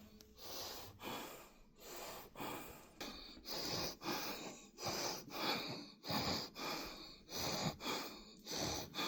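A person breathing heavily close to the microphone: soft, hissy in-and-out breaths, about two breath sounds a second, faint.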